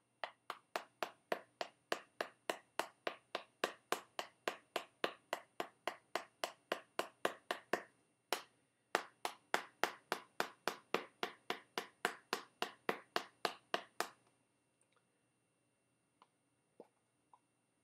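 Quick, sharp taps at about three a second as a tin of Skoal long cut dip is packed with repeated wrist snaps, the index finger striking the lid. The tapping pauses briefly after about eight seconds, resumes with one louder tap, and stops about fourteen seconds in, leaving a few faint ticks.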